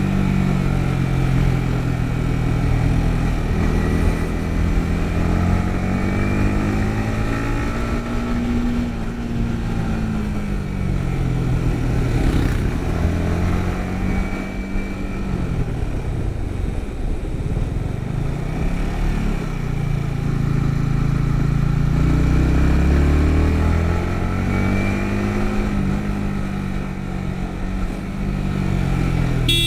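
Yamaha MT-15's 155 cc single-cylinder engine pulling under way. Its pitch rises and falls again and again as the rider accelerates, changes gear and eases off.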